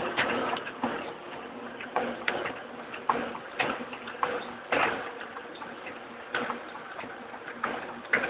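Adast Dominant 724 sheet-fed offset printing press running: a steady mechanical hum broken by sharp clacks, roughly one or two a second at uneven spacing.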